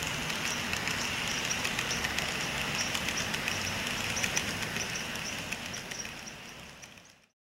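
N scale model train running on its track: a steady high whir with light, rapid clicking of the wheels over the rails, fading out over the last second or so.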